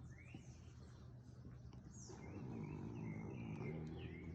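Faint bird chirps: short sweeping calls that come every second or so. A low, quiet voice murmurs beneath them about halfway through.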